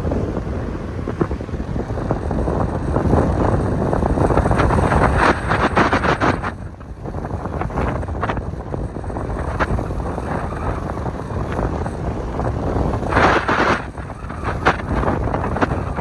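Wind buffeting the microphone of a moving camera: a loud, rumbling rush that swells in several stronger gusts.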